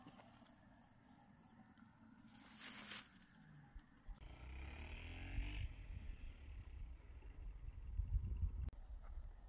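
An insect chirping in a high, even pulse, about four chirps a second. A brief rustle comes about two and a half seconds in, and a low rumble sets in about four seconds in.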